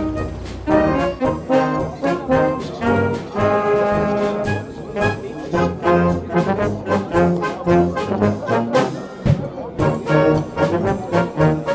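Brass band music with a steady beat, trumpets and trombones playing a tune.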